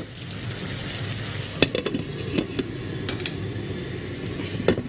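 Minced meat and tomato mixture sizzling in a wok as its last water cooks off. A few sharp knocks and clinks come as a glass lid is set back on the pan, the loudest about a second and a half in.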